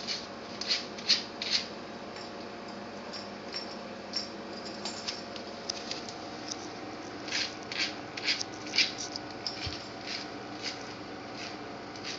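A puppy's claws scraping and tapping on a ceramic tile floor as it paws at a cockroach: short scratchy scrapes in two flurries, one at the start and another about seven to nine seconds in.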